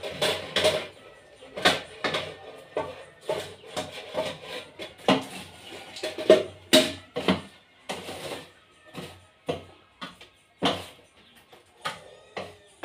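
Metal scoop knocking and scraping on the floor of a glass-cabinet popcorn machine as popcorn is pushed and scooped, irregular clinks and rattles a few times a second.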